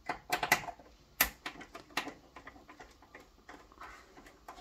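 Small screwdriver working the tiny screws out of a turntable's play-switch mounting: a string of light clicks and ticks, the sharpest in the first two seconds, then fainter irregular ticking.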